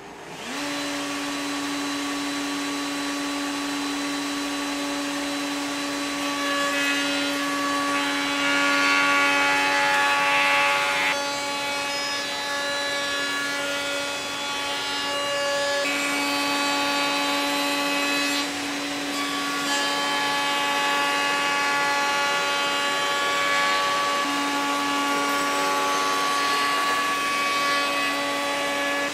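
Table-mounted wood router spins up about half a second in, then runs with a steady high whine. Two louder, rougher stretches come as the bit cuts wood fed along the fence: one about a third of the way in, and a longer one in the second half.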